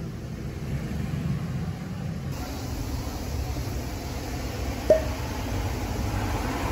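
Steady low rumble of street traffic, heard outdoors. A single brief, sharp squeak comes about five seconds in.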